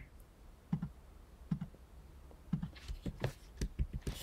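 Computer keyboard and mouse clicks: a few single taps spaced about a second apart, then a quicker run of key presses near the end.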